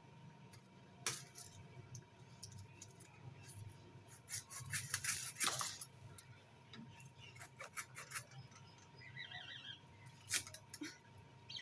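Small hand knife cutting and scraping at the fibrous, thorny frond bases of a young date palm: scattered sharp snaps and clicks, with a denser stretch of scraping about halfway through.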